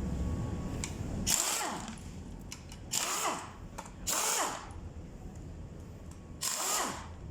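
Adhesive tape being pulled off a roll in four short ripping pulls, about half a second each, while marking the camshaft timing on a truck engine.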